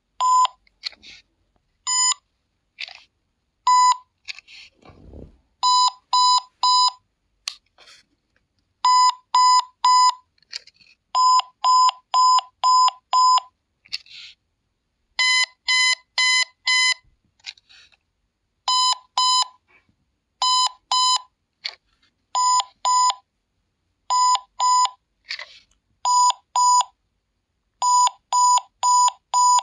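Battery-powered My First Thomas & Friends Railway Pals toy buzzing: short electronic beeps, all at one mid pitch, in irregular runs of one to five about three or four a second with pauses between. Faint scratchy handling noises fall in the gaps.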